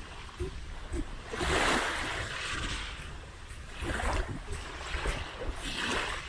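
Small waves washing onto a sandy beach, the surf rising and falling in swells a couple of seconds apart over a low rumble.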